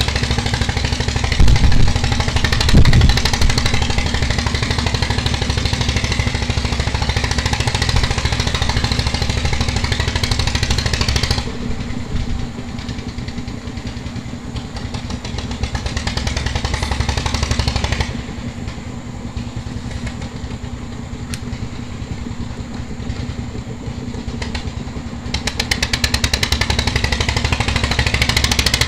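Background music with a fast, even beat that changes section several times. Two loud low thumps come about one and a half and three seconds in.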